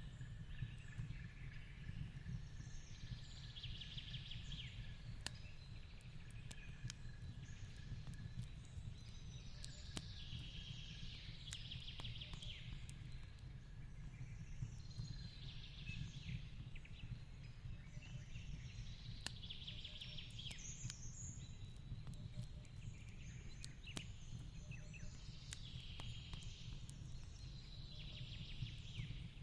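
Fireplace crackling over a low steady rumble, with a bird's high call repeating every three or four seconds in the background.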